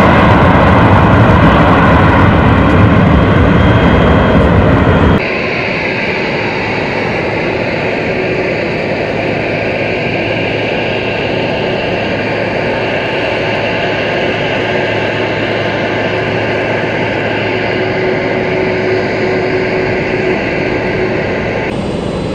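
Boeing 747 freighter's jet engines running, a loud, steady rush for about five seconds, then cutting suddenly to a quieter, steady jet noise with a faint low hum.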